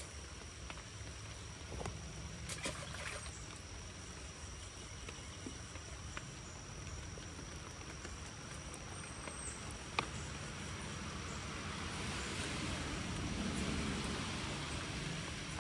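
Light rain falling on a creek, a steady even hiss, with a few faint clicks from fishing tackle being handled; the hiss swells a little near the end.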